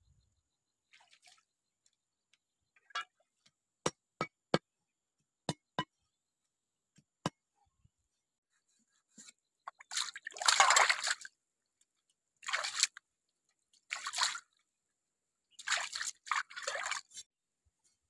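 Water dripping a few times, then splashing and sloshing in short bursts as a fish is rubbed and rinsed by hand in a bowl of stream water.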